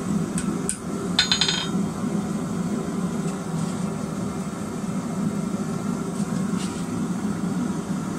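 A hand hammer taps a small forged steel hook held against the anvil a few times. One strike, about a second in, rings out clearly as metal. A steady low drone runs underneath.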